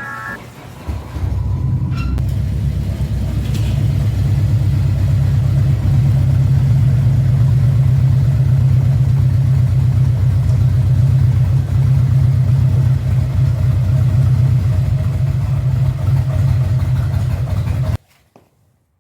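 Harley-Davidson FLHR Road King's V-twin engine starting about a second in and idling with a steady, pulsing low rumble, then stopping abruptly near the end.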